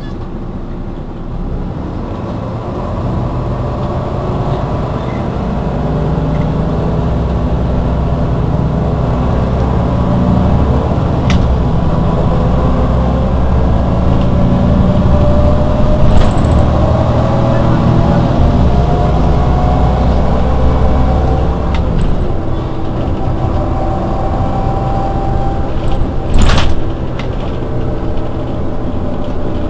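Iveco Urbanway 18 articulated city bus standing at a stop with its engine running, the engine noise swelling gradually and a faint rising whine through the middle. There is a brief loud burst of noise near the end.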